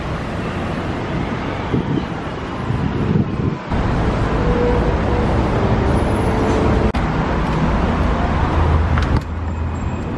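Street traffic noise: a steady rumble of passing cars, broken by abrupt cuts about four, seven and nine seconds in.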